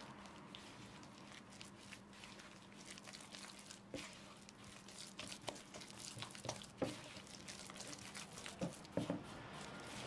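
Silicone spatula stirring flour into a wet dough in a wooden bowl: faint scraping and sticky squishing, with irregular light clicks that grow more frequent in the second half.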